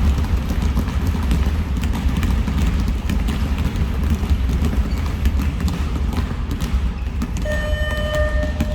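Many basketballs dribbled low and fast at the same time on a gym floor: a dense, continuous patter of overlapping bounces during a timed speed-dribbling drill. Near the end, a steady pitched tone begins.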